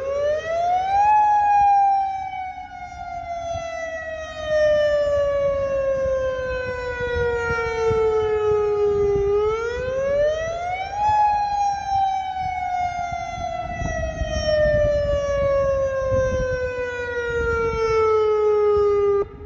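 Federal Signal Modulator 8032B electronic outdoor warning siren sounding its wail tone during a system test. The pitch rises quickly, then falls slowly for about eight seconds. This happens twice, and the tone cuts off abruptly just before the end.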